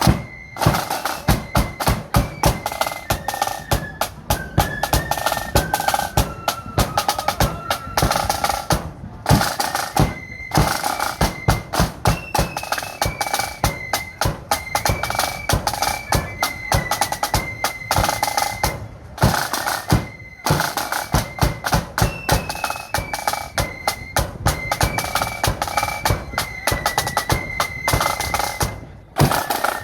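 A marching flute band playing: a high flute melody over busy snare drum rolls and drum beats.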